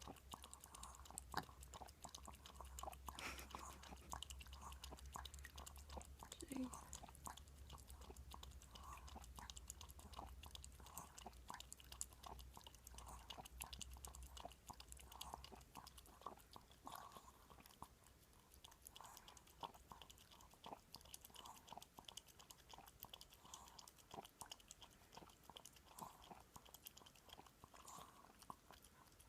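Chihuahua lapping up milk: faint, quick wet laps repeating steadily.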